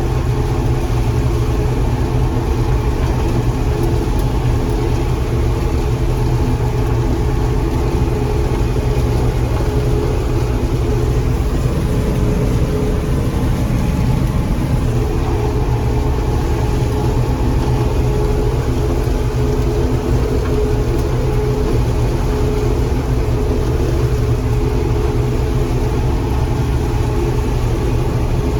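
John Deere 4400 combine running steadily at harvesting speed, a constant loud engine and machinery drone with a brief change in tone about halfway through.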